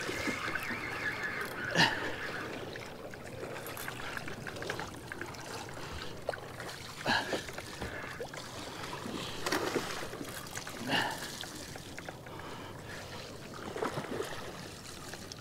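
Water lapping and trickling against a small boat's hull, with a handful of brief louder splashes spread through.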